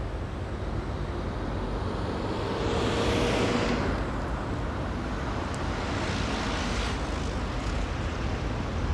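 Steady low rumble of outdoor city background. A passing vehicle swells up and fades about three seconds in, and a smaller one passes around six to seven seconds in.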